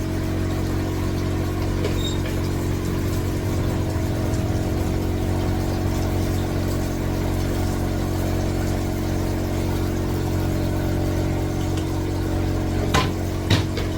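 Steady low machine hum, with two sharp knocks near the end.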